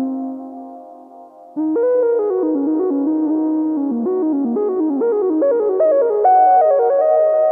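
Ambient synthesizer music: a held note fades away, then about a second and a half in a monophonic Model D synth lead comes in with a gliding melody over sustained Rhodes electric piano chords, washed in delay, chorus and reverb from Walrus Audio pedals.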